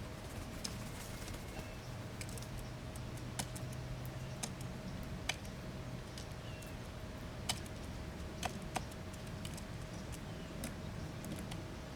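Scattered sharp ticks and taps at irregular intervals, about ten of them, over a steady low hum.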